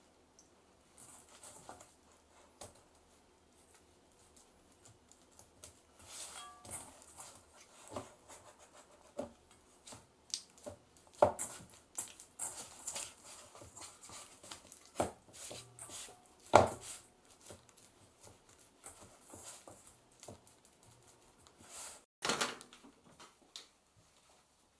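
Hands mixing and folding wet ciabatta dough in a stainless steel bowl: soft handling sounds with irregular taps and knocks against the bowl, two of them louder in the middle.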